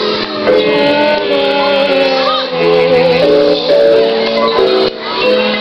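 Background music: a melody of held notes over chords, shifting from note to note.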